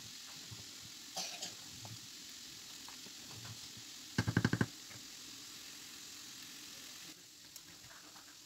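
Food sizzling faintly in pans on the hob while a wooden spoon stirs the pot. Just after four seconds there is a brief, loud, rapid stutter lasting about half a second, the loudest sound here.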